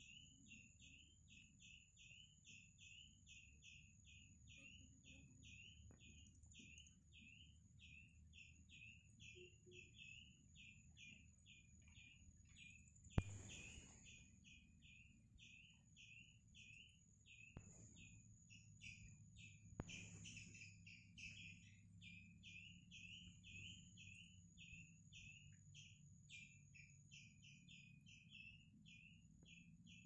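Faint chirping, short high calls repeated about three times a second, over a steady high-pitched whine. A sharp click comes about thirteen seconds in, and two softer clicks follow a few seconds later.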